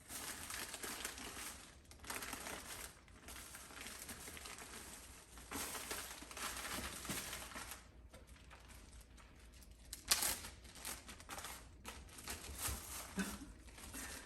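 Plastic bags and food packaging crinkling as they are handled, in several irregular rustling spells, with one sharp click about ten seconds in.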